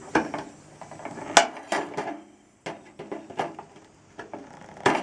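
Tin snips nipping through aluminum gutter sheet to cut out a downspout hole: a run of irregular sharp metallic snips and clicks, with the loudest about a second and a half in and at the end.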